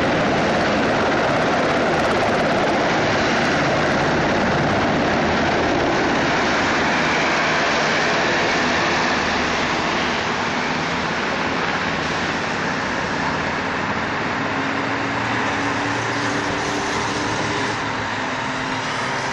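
Military helicopter flying low overhead: steady, loud rotor and engine noise that eases off a little about halfway through as it moves away.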